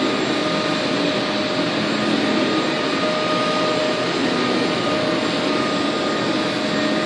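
Steady whooshing drone of a running machine with a constant whine in it, even in level throughout.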